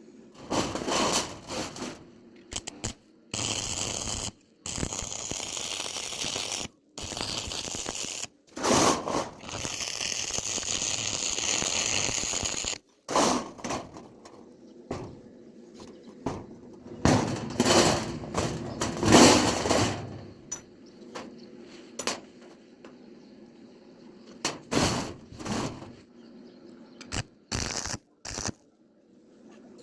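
Metalworking in short clips that start and stop abruptly: two stretches of steady crackling noise of several seconds each, then bursts of clattering metal knocks.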